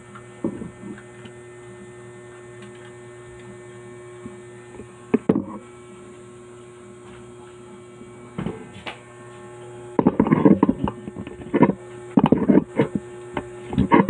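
Steady electrical mains hum, with a few scattered clicks; in the last few seconds it is joined by a run of short crackling, crunching noises.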